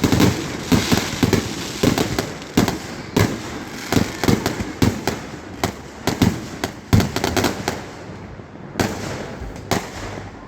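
Aerial fireworks going off in a dense barrage of bangs and crackles during a finale, thinning out to scattered bursts in the last few seconds.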